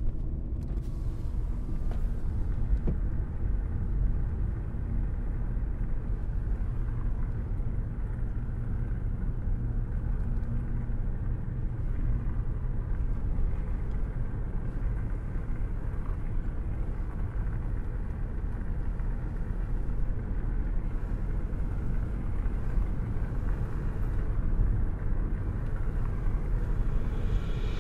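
Steady low rumble of a car's engine and tyres on tarmac, heard from inside the cabin while driving along an open road.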